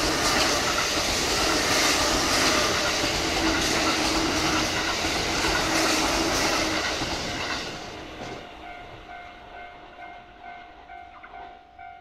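A Kintetsu 8600-series electric commuter train passes close by over a level crossing, its wheels clattering on the rails. The train is loud for about the first seven seconds and then fades away. As it fades, the crossing's electronic warning bell is heard ringing with a steady repeating tone until near the end.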